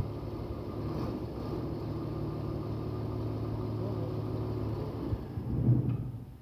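Sinotruk WD615 inline-six diesel engine, freshly overhauled, running steadily. It briefly gets louder near the end, then the sound falls away.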